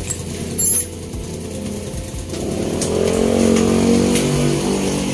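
A motorcycle engine running, swelling louder and rising in pitch from about halfway through, then cutting off suddenly. A brief metallic click comes under a second in.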